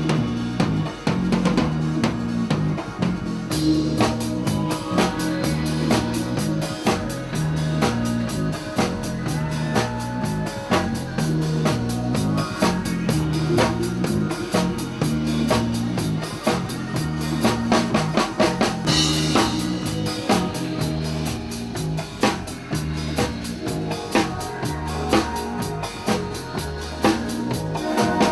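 Band playing with a full drum kit: a steady beat of bass drum and snare over a bass line, with cymbals coming in about three and a half seconds in.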